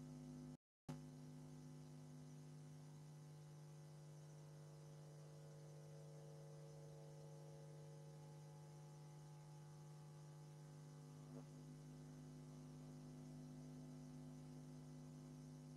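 Near silence with a steady low electrical hum, which drops out completely for a moment under a second in; a faint click about eleven seconds in.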